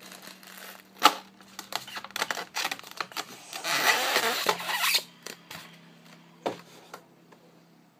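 Packaging being handled while an airsoft pistol and a bag of BBs are taken out of their box: a sharp knock about a second in, a run of small clicks, a louder rustle in the middle, and one more knock near the end.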